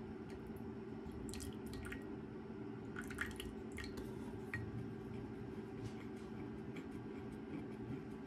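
Water poured from a plastic bottle, dripping into a small glass bowl. Then a plastic measuring spoon stirs potato starch and water in the bowl, with small clicks against the glass. A steady low hum runs underneath.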